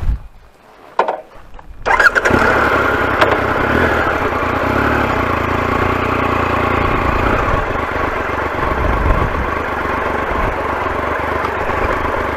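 Triumph Explorer's three-cylinder engine starting about two seconds in, after a couple of light knocks, then running steadily.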